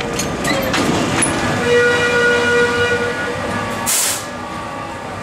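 Wooden Sóller tram passing on curved street track: its wheels click over the rail joints, then a long steady squeal holds for about two seconds as it takes the curve. A short hiss follows just before four seconds in.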